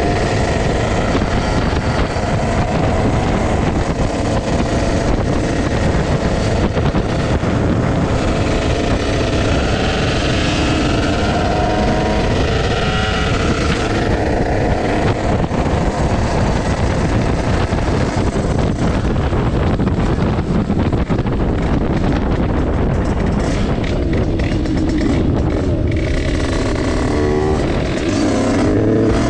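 Two-stroke Derbi Senda moped with a Stage6 88cc kit running on the road, with wind rushing over the microphone. Near the end the engine revs up, its pitch rising.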